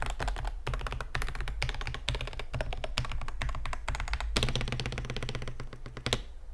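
Typing on a Yunzii RT80 mechanical keyboard with Gateron Magnetic White linear magnetic switches, a polycarbonate plate and PBT Cherry-profile keycaps: a steady stream of key clacks. About two-thirds through, the keystrokes come in a faster, denser run, and they stop shortly before the end.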